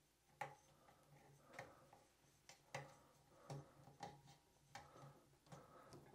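Faint, irregular clicks and taps, about ten of them, as small plastic end caps are handled and pressed onto the tops of a 3D printer's frame uprights.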